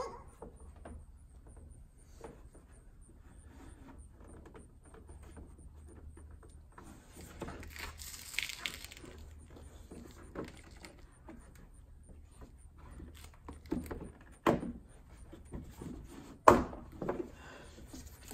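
Ram 2500's plastic front wheel-well liner being pried and pulled away from the fender, with scattered clicks and handling noises. There is a scraping rustle near the middle and two loud sharp knocks about two seconds apart near the end.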